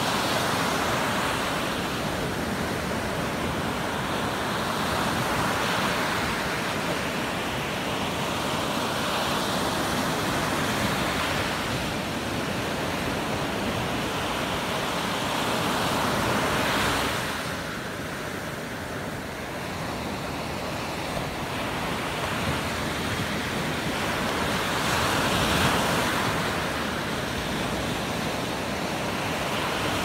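Small sea waves breaking and washing up a sandy beach: a continuous rush of surf that swells and eases as each wave comes in, with a quieter lull a little past the middle.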